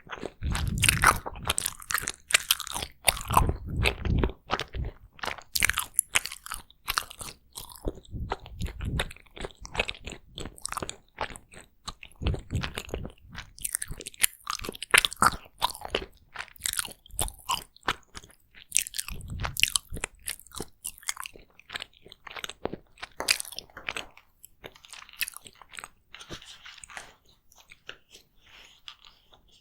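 Close-miked chewing and biting of takoyaki: wet smacks and clicks of the mouth in an irregular run, busiest in the first half and thinner near the end.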